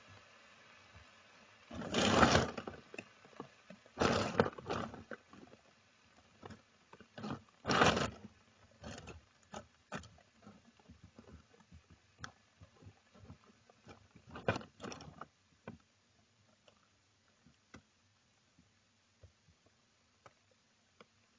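Squirrels shifting in their nest: four short bursts of rustling and scratching, with scattered small clicks and taps between them.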